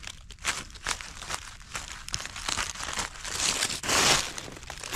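Dry leaves and brush crunching and crackling irregularly underfoot, with a louder rustling stretch near the end.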